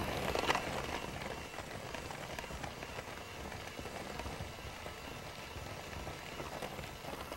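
Handheld electric mixer running steadily, its beaters churning a dough of creamed butter, brown sugar and egg in a glass bowl.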